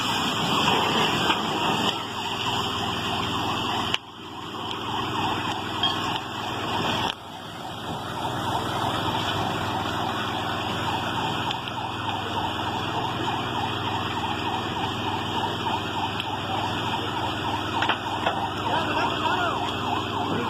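A siren wailing continuously over a dense background of crowd and street noise, with two abrupt breaks in the sound about four and seven seconds in.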